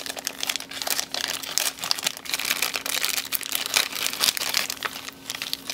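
Clear plastic zip bag of small parts crinkling as it is handled, a dense, irregular run of small crackles.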